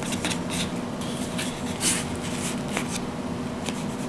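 A dull table knife sawing back and forth through a sandwich of wheat bread and bologna: a series of short, uneven rasping strokes, one louder about two seconds in, with the blade scraping on the paper plate.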